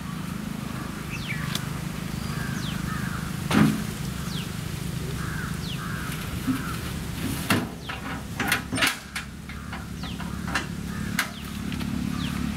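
Knocks and thumps of potted saplings and their wheelbarrow being handled while the plants are loaded onto a truck: one strong knock about a third of the way in, then a quick cluster of sharp knocks past the middle. Birds chirp over a low steady hum.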